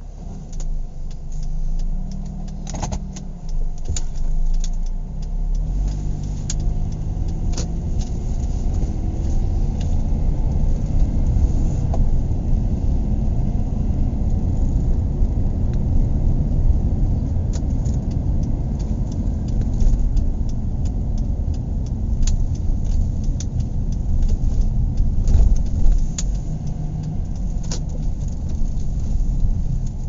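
Car interior while driving: steady engine and road rumble, with the engine note rising as the car speeds up, first briefly near the start and again a few seconds later. A few sharp clicks sound now and then.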